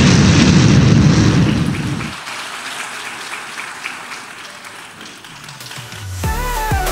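Audience applauding, loud for about two seconds and then dying away into scattered claps. Music starts near the end.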